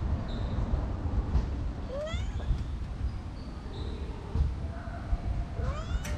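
A cat meowing twice: short calls that rise in pitch, about two seconds in and again near the end.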